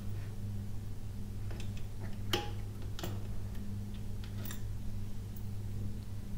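Scattered light metallic clicks and ticks from a hand-cranked wire-bending jig twisting a spinner's wire loop closed, over a steady low hum. The sharpest click, about two and a half seconds in, rings briefly.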